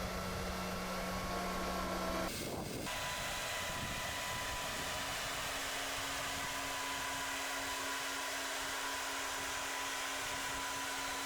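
Steady mechanical hum of heavy machinery with a held low tone; about two seconds in it breaks off briefly and a different steady machine hum with a slightly higher tone takes over.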